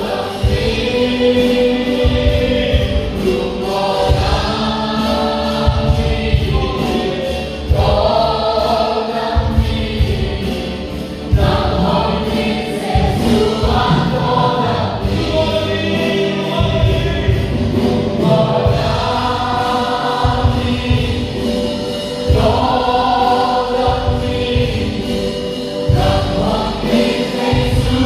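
A group of voices singing a Christian worship song, with instrumental backing that keeps a steady low beat.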